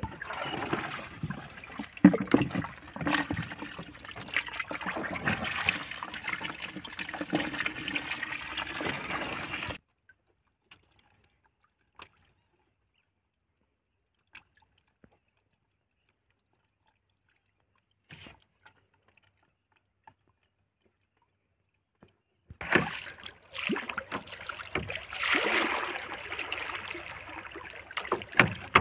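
Water sloshing and splashing around a small wooden fishing boat, with knocks of handling on board. It stops about ten seconds in, leaving near silence with a few faint clicks, and starts again a few seconds before the end.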